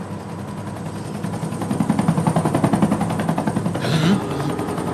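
Military aircraft approaching, a rapid even beating that grows louder over a couple of seconds, with a brief rush about four seconds in, over the steady rumble of the transport vehicle.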